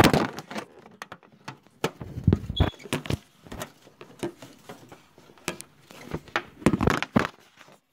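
Handling noise close to the microphone: irregular knocks, clicks, low bumps and rustling as the recording device is set up and positioned.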